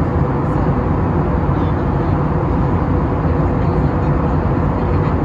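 Airbus A321neo cabin noise: a steady engine drone and rush of air, with a few constant humming tones underneath.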